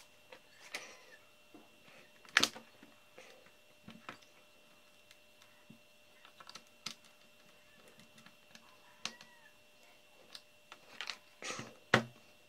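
Screwdriver and hands clicking and tapping on the plastic bottom case of an HP Compaq Presario CQ61 laptop during reassembly, with sharper knocks about two seconds in and near the end as the case is handled and turned. A faint steady high whine runs underneath.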